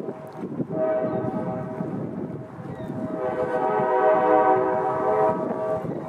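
Diesel locomotive air horn sounding two chord blasts, the second longer and louder, over low wind rumble on the microphone.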